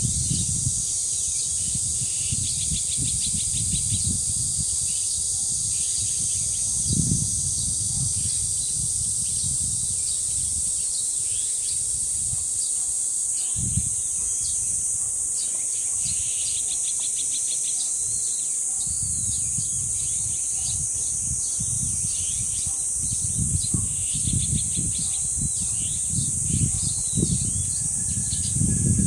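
Cicadas droning in a steady high chorus, with small birds chirping and trilling on and off, and wind buffeting the microphone in gusts of low rumble.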